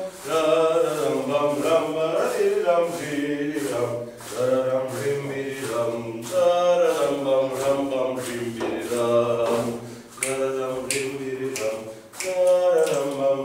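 A voice singing a slow zeybek melody in long, wavering phrases with short breaks between them, with faint regular taps beneath it.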